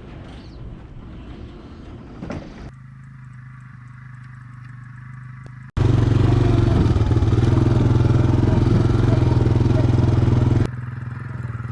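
A small engine running steadily, heard in short clips joined by abrupt cuts. It is loudest in a middle stretch of about five seconds, then drops back.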